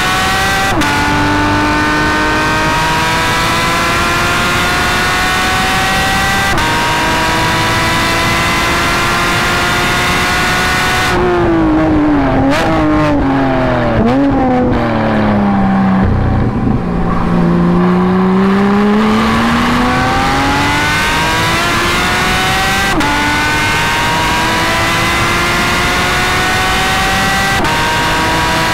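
Porsche 718 Cayman GT4's 4.0-litre flat-six through a JCR exhaust, heard from inside the cabin. It pulls hard with the revs climbing, with quick PDK upshifts about a second in and about six seconds in. About eleven seconds in it drops through a run of downshifts with rev blips, then climbs again and makes two more upshifts near the end.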